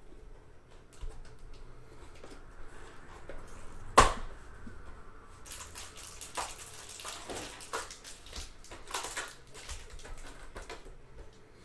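Trading card packs being handled and unwrapped by hand: a single sharp snap about four seconds in, then a run of crinkling and tearing of pack wrappers and card handling.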